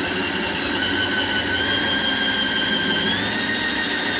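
Black & Decker 20V cordless drill running steadily with a metal hole saw bit pressed on a wood board, a continuous motor whine that steps up slightly in pitch about three seconds in. The drill is set to reverse, so the hole saw spins without cutting.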